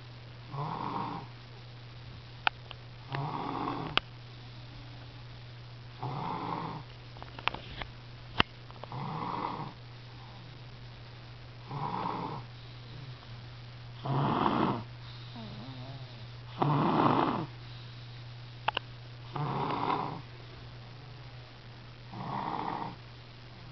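Slow, regular snoring: nine snores about a second long, one every two and a half to three seconds, with a few sharp clicks in between and a steady low hum underneath.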